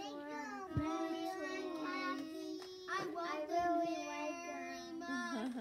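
Young children singing together, with notes held for a second or so at a time.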